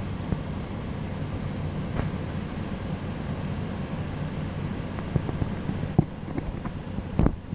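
Diesel engine of a track excavator running steadily. A few sharp knocks come in the last couple of seconds, the loudest just before the end.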